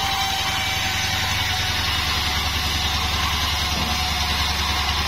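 Bandsaw 36 band sawmill running steadily: a low, pulsing engine drone under an even hiss, with a faint high tone.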